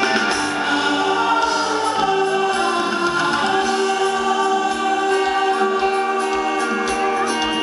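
Live axé band music: held notes sung by several voices over a steady drumbeat.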